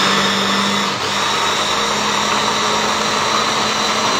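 Smeg electric hand blender with its chopper bowl running steadily, puréeing cooked peas and vegetables into a smooth soup. Its motor hums at a constant pitch, with a slight dip about a second in.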